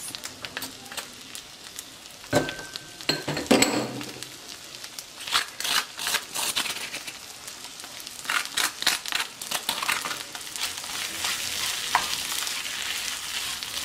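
Whole shrimp frying in butter in a pan, a steady sizzle that grows stronger in the second half. A wooden spatula scrapes and knocks against a stone molcajete as ground garlic and pepper are scraped in, with two sharper knocks early, then scrapes the shrimp around the pan.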